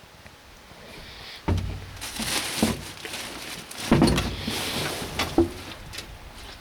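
Heavy clunks and knocks of steel on a parked bulldozer's deck and cab, with rustling. The loudest come about one and a half and four seconds in, with a smaller knock near the end.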